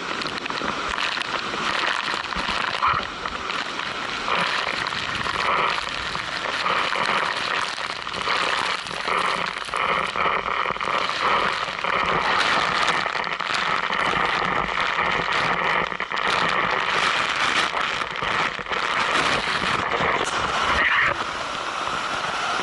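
Steady rushing noise of a waterfall's falling water.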